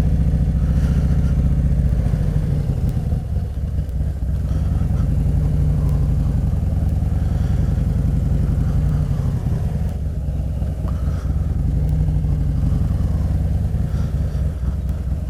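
Harley-Davidson motorcycle's V-twin engine running steadily at low speed.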